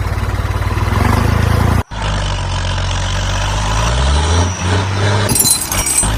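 Small electric motors and gear drives of homemade model tractors running under load: a steady pulsing hum that breaks off sharply about two seconds in, then a second motor whose pitch rises, with a clattering rattle near the end.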